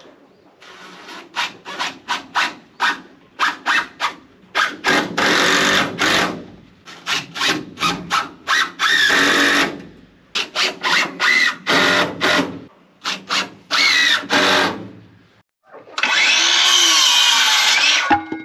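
A power drill driving screws into wood framing: many quick trigger bursts, then longer runs with the motor pitch rising and falling. Near the end comes a steady two-second cut from a cordless circular saw going through a board.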